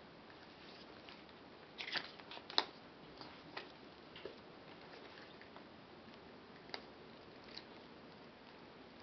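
Faint handling noises from unboxing a camera box and its contents: a quick cluster of clicks and crinkles about two seconds in, then a few scattered single clicks.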